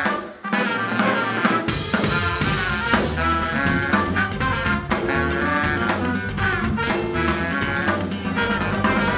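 Jazz-rock band playing live: drum kit keeping a steady beat under horns and electric violin. A low bass line comes in about a second and a half in.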